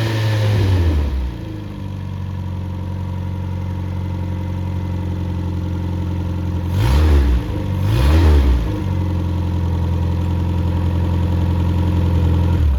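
Freshly rebuilt MG Midget 1500 four-cylinder engine running on a stand. It settles from higher revs to a steady idle, is blipped up twice about seven and eight seconds in, then idles steadily again.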